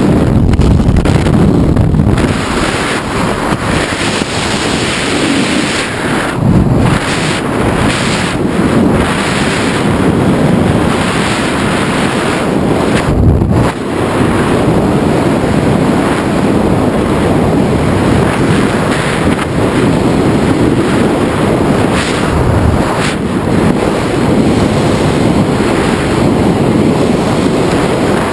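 Loud, steady rush of freefall wind blasting over the skydiver's own camera microphone, with a few brief gusty swells.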